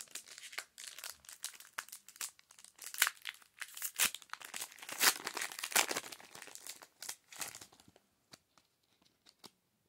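Pokémon booster pack's foil wrapper being torn open and crinkled in the hands, a dense crackling for about seven seconds that thins to a few scattered clicks near the end.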